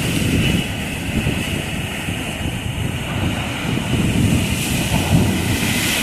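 Wind buffeting the microphone with an uneven low rumble, over the steady hiss of sea surf.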